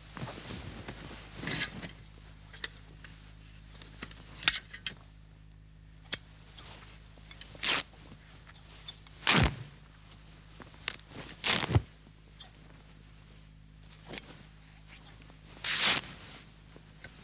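Scissors cutting up clothes, with cloth pulled and rustled between cuts; about half a dozen louder cuts or rips come a few seconds apart. A faint low hum runs underneath.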